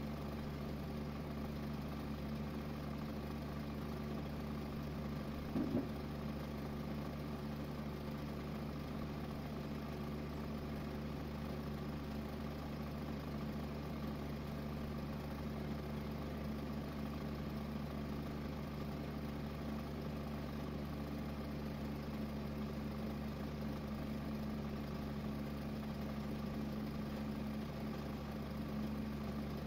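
Steady mechanical hum of a running motor, with one brief louder noise about six seconds in.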